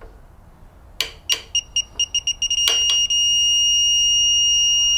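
Digital torque wrench tightening a ladder-leveler bolt to its 9 ft-lb setting: short high beeps coming faster and faster, then merging into one steady beep about halfway through, the signal that the set torque has been reached. A few sharp clicks come just before the beeping starts.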